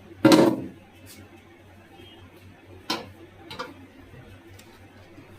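Knocks and clatter of vegetables and containers being placed in a fridge: one louder, longer clatter just after the start, then two sharp clicks about three seconds in.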